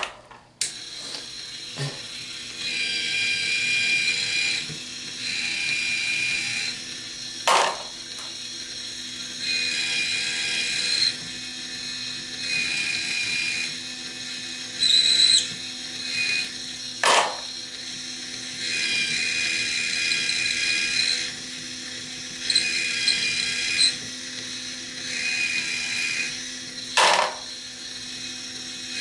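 A Hornady Case Prep Trio's electric motor runs steadily. Brass .223 cases are pressed onto its spinning heads to chamfer and deburr the case mouths, giving repeated bouts of high scraping whir about two seconds long. Three sharp clicks come about ten seconds apart.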